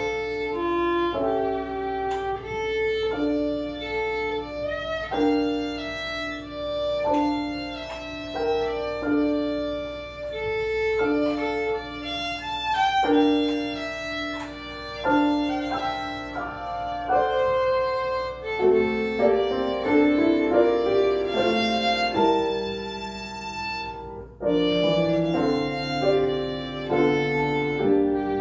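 Violin playing a melody in separate, mostly held notes. About two-thirds of the way through, the music thickens into several notes at once, and lower notes come in near the end.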